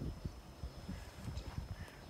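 Wind buffeting the microphone in uneven low gusts, with a few faint high chirps.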